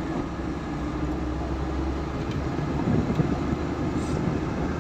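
Steady engine and road noise inside the cabin of a moving van.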